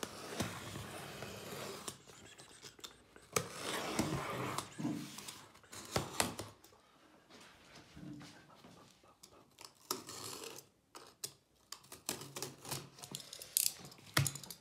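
Snap-off utility knife scraping along the packing tape seam of a cardboard box in a few long strokes, then cardboard being handled, with scattered clicks and knocks near the end.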